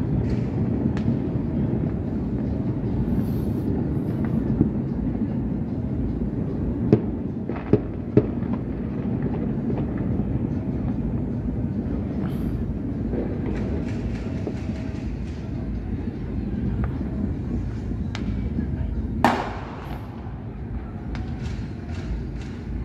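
Distant New Year fireworks and firecrackers across a city, scattered sharp pops over a continuous low rumble, with one louder crackling bang near the end.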